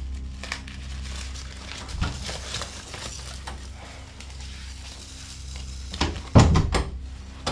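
A room door being opened and closed: small latch and handle clicks, then a loud knocking thud about six seconds in as it shuts, over a low steady hum.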